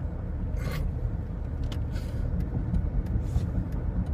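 Steady low road and engine rumble inside a moving car's cabin, with a few brief faint hisses over it.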